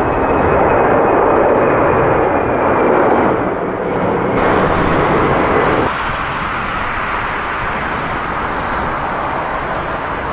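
Loud jet engine noise of a Boeing 747-400 freighter's four engines at takeoff thrust, with a crackling edge. About six seconds in it gives way to the quieter, steady engine noise of a Gulfstream G650ER business jet taking off.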